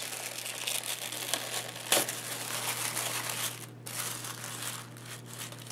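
Tissue paper crinkling and rustling as hands unwrap and fold it back, with a sharper crackle about two seconds in.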